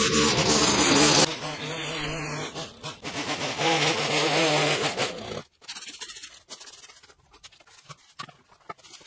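A steady low drone for about the first five seconds, then a plastic leaf rake scraping in short, irregular strokes over dry grass and debris.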